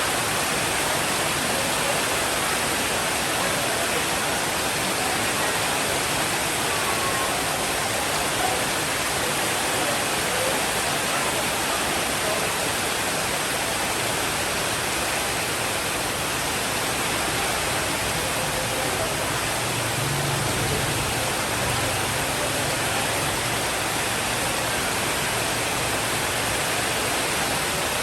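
Steady heavy rainfall, an even unbroken hiss. A soft, low rumble of distant thunder comes in about twenty seconds in.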